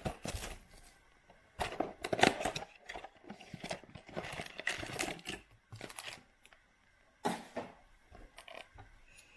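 Cardboard blaster boxes of football cards being torn open and their foil-wrapped card packs tipped out and dropped onto a pile: irregular bursts of tearing, crinkling and light tapping, with short pauses between.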